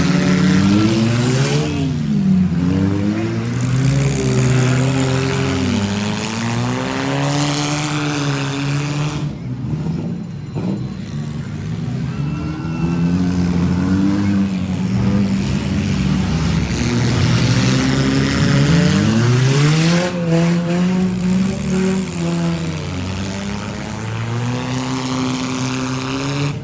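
Demolition derby car engines revving, their pitch rising and falling again and again.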